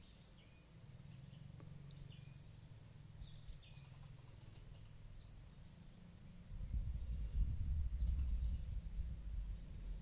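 Small birds chirping in short, scattered high notes, with two longer high calls, over a quiet outdoor background. About two-thirds of the way through, a louder low rumble sets in on the microphone.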